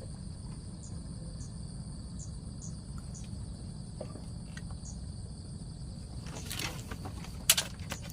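Insects droning steadily on two high notes, with a row of short chirps in the first few seconds, over a steady low rumble. There is a sharp click about seven and a half seconds in.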